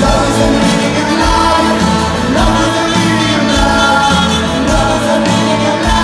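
Live rock band playing with a horn section of saxophone and trombone, with singing over the band, heard from the crowd in a large open-air venue.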